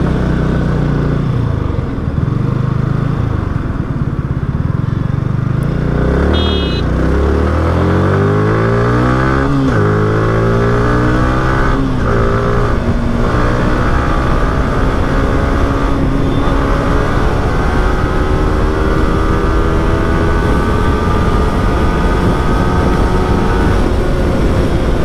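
Yamaha R15 V3 motorcycle's single-cylinder engine pulling away through the gears. Its pitch rises, drops at gear changes about ten and twelve seconds in, then climbs slowly as the bike gathers speed.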